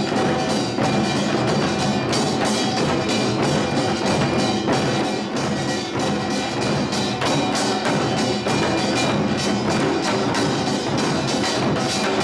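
Samul nori percussion ensemble playing: kkwaenggwari small gongs clanging over janggu and buk drums in a fast, unbroken stream of strikes.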